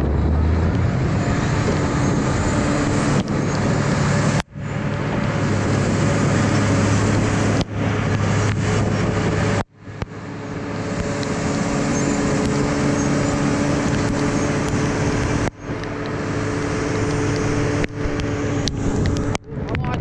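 Shantui SD32 crawler bulldozer's diesel engine running steadily at working revs as it pushes rock and soil, broken by a few sudden brief dropouts.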